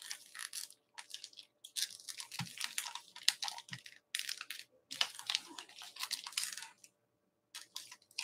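Comic books being handled and sorted on a desk: irregular rustling and crinkling in short bursts, with a couple of soft knocks, pausing for a moment near the end.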